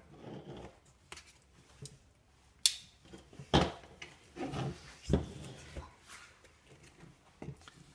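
A small knife scraping along the edge of a cardboard box to cut its seal. The box is then handled and turned over, giving rubbing and a few sharp taps and knocks of cardboard on the table.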